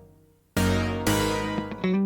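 Background music with plucked strings, such as guitar, starting suddenly after a brief moment of silence: a chord rings, then a few quick plucked notes follow near the end.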